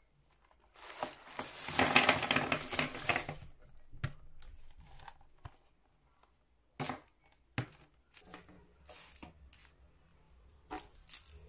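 A boxful of twist-wrapped mini chocolate bars in foil and plastic wrappers tipped out onto a wooden table: a loud crinkling rush about a second in, lasting a couple of seconds. After it come scattered crinkles and light taps as the wrapped sweets are moved about.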